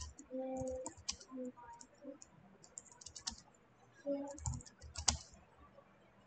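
Typing on a computer keyboard: quiet key clicks in irregular short runs, as a line of text is typed out.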